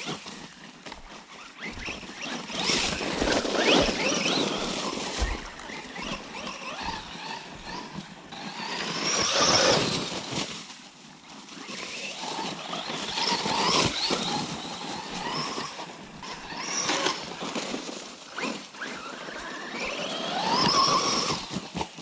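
Electric RC car motor whining, its pitch rising sharply several times as the car accelerates, over a steady rushing noise from the tyres.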